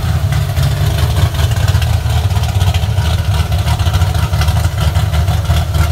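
Lowered 1967–72 Ford F-series bumpside pickup's engine idling as the truck creeps past, a steady low exhaust note from its side-exit pipes.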